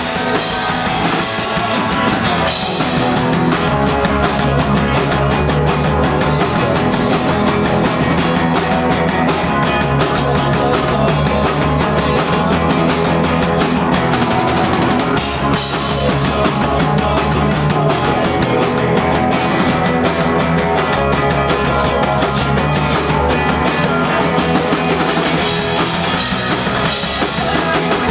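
A punk rock band playing live: electric guitars and bass over fast, busy drums, loud and continuous.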